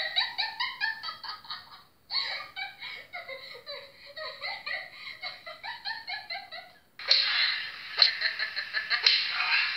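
High-pitched laughing in quick, repeated bursts, broken by a short gap about two seconds in. About seven seconds in it gives way to a rushing noise with several sharp cracks.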